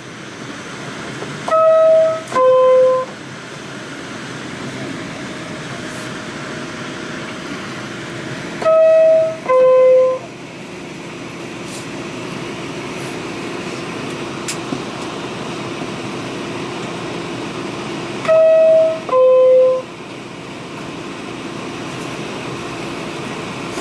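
R46 subway car running between stations with a steady rumble and hum. Three times, a loud two-note falling electronic tone sounds, high then low, each note about half a second, the pairs about eight or nine seconds apart.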